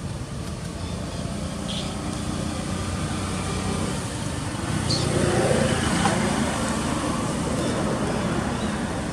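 Low outdoor rumble of background noise that swells about five seconds in, then eases.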